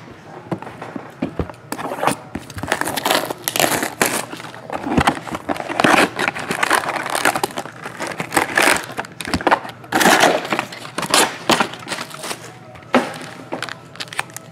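Foil wrappers of Panini Prizm football hobby packs crinkling and rustling in irregular bursts as the stack of packs is handled and lifted out of its cardboard box, with a sharp tap near the end.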